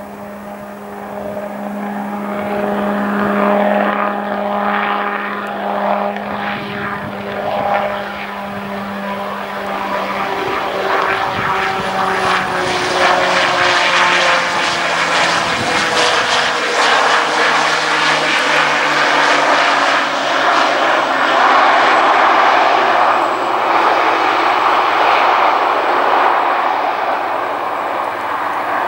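Piaggio P.180 Avanti's twin pusher turboprops on landing. A steady propeller drone on approach gives way, after touchdown about halfway through, to a lower drone under a louder rushing engine noise as the aircraft rolls out.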